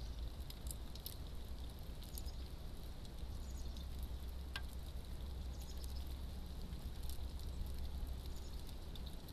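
A squirrel at a bird feeder making light, scattered clicks and scratches, with one sharper click about halfway through, over a steady low rumble.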